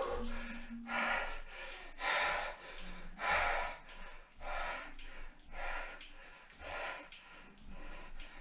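A man breathing hard under exertion during a resistance-band exercise, with rhythmic noisy breaths at about one a second.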